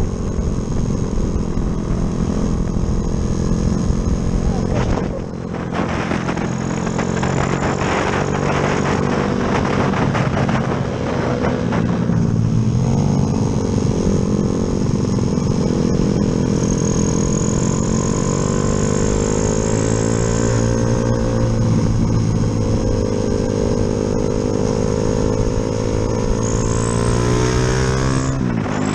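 Yamaha Jupiter MX motorcycle's single-cylinder four-stroke engine, fitted with a 72 mm piston, pulling hard under way. Its pitch climbs and then drops back through gear changes, with a big drop near the end.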